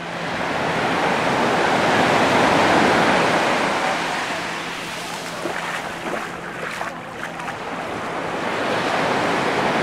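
Mediterranean surf breaking and washing up the sand, swelling to a peak about two to three seconds in, easing off, then building again with the next wave near the end.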